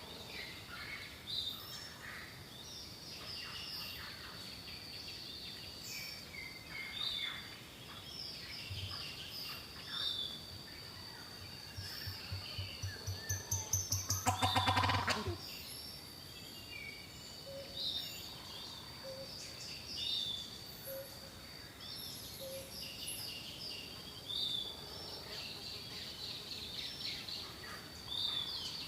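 Turkey gobbling once about halfway through, with a low pulsing that grows louder just before the call. Small birds chirp throughout.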